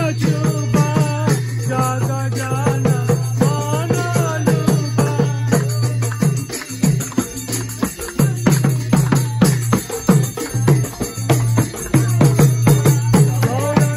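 Devotional kirtan music: a harmonium holding a steady low drone, with small brass hand cymbals (karatalas) clashing and a hand drum struck in a fast, even rhythm. A voice sings the melody for the first five or six seconds, and then the instruments carry on alone.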